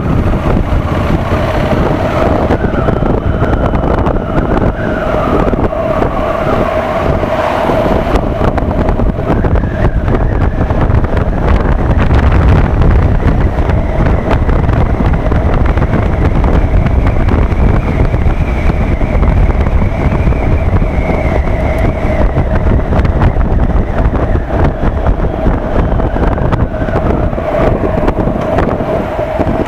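Honda motorcycle engine running while riding, with wind rumble on the microphone. The engine note climbs steadily through the middle as the bike accelerates, drops back about two-thirds of the way through, and the sound eases off near the end as it slows.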